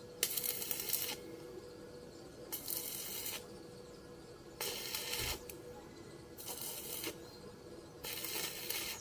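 Electric arc welding in five short runs, each just under a second of crackling, spaced about two seconds apart: short tack or stitch welds being laid on a metal door latch.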